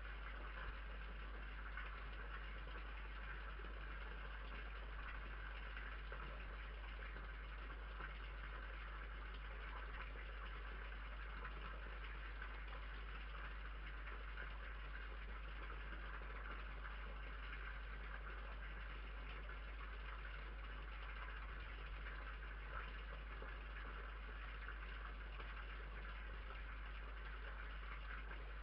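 Steady hiss with a low electrical hum from a security camera's microphone, unchanging throughout, with no animal calls or knocks standing out.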